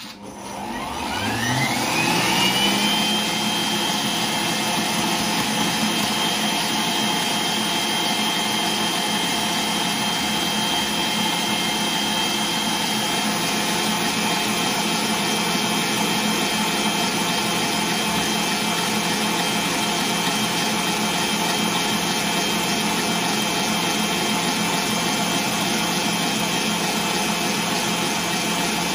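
Electric stand mixer starting up, its motor whine rising over the first two seconds or so, then running steadily at high speed as the wire whisk beats egg whites with sugar.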